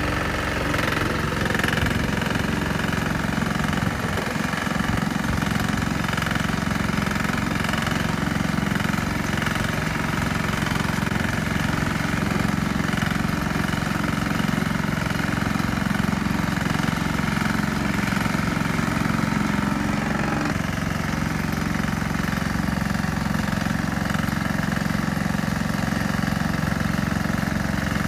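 Grillo G110 walk-behind tractor's small engine running steadily while its rotary tiller churns through soil, with a slight shift in its note about two-thirds of the way through.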